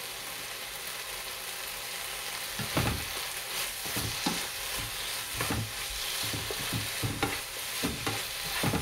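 Octopus and vegetables sizzling in a frying pan as they are stir-fried, with a steady hiss. A plastic spatula scrapes and knocks against the pan while tossing them, the knocks coming irregularly about once or twice a second from about two and a half seconds in.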